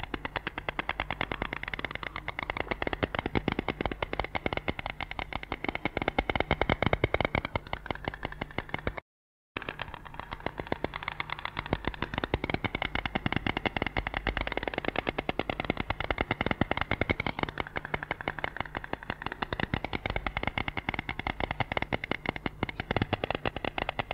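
White stork bill-clattering: a rapid, rattling run of beak clacks, many per second, breaking off for about half a second some nine seconds in.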